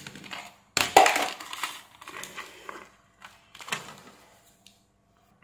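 Plastic parts of an LED ceiling light being handled on a workbench: the housing and diffuser knock and scrape. The loudest knock comes about a second in, followed by rustling, and a shorter burst of handling comes near four seconds.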